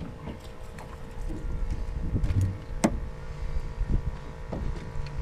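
Wind buffeting the microphone aboard a small fishing skiff, with a few light clicks and knocks and one sharp knock about three seconds in.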